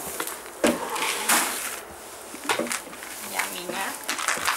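A horse eating feed from a plastic bucket: rustling and crunching with a few sharp knocks.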